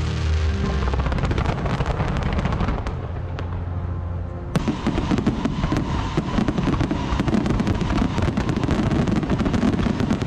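Aerial fireworks display: a rapid, dense run of bursting shells and crackling stars, with music playing under it for the first few seconds. About four and a half seconds in, the bursts suddenly become louder and denser as a barrage of shells goes up together.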